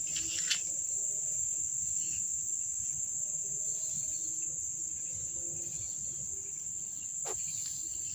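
Crickets chirping in a steady, high-pitched trill that does not break, with a faint low background rumble underneath.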